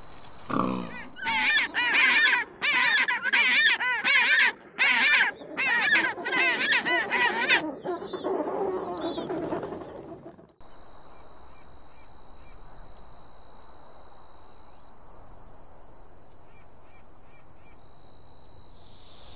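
A bird calling in a quick series of loud, honking calls for about eight seconds. About ten seconds in, it cuts off suddenly to a steady high thin whine with faint ticks.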